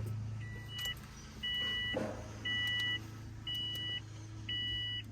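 Electronic beeper sounding a two-tone beep about once a second, each beep about half a second long, five in a row, over a low steady hum with the ignition switched on.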